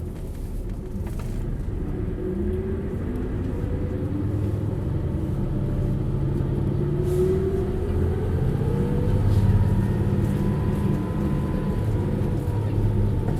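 Hino U-HT2MLAA diesel bus engine pulling under acceleration, its note and an accompanying whine rising slowly over the first several seconds and then holding steady as it gets louder. The bus is in poor running condition, with strong abnormal noises.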